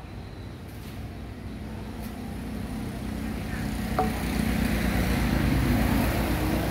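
A motor vehicle engine running nearby, growing louder in the second half. About four seconds in, one light clink as a glazed ceramic bowl is set down on a stone floor.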